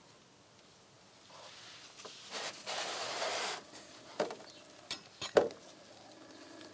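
A plastic engine-oil jug being shifted across the bench and lifted by hand: a scraping rustle, then a few sharp knocks, the loudest near the end.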